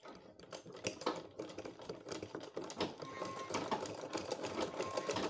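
Sewing machine running, a quick clatter of needle strokes as it stitches layered fabric, padding and stiffener together.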